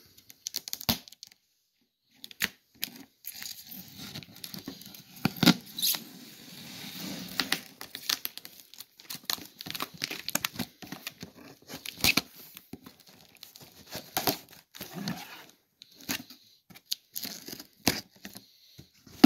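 Steak knife sawing through packing tape and cardboard along a shipping box's seam: a long run of irregular scratchy rasps and tearing, with a pause of about a second near the start.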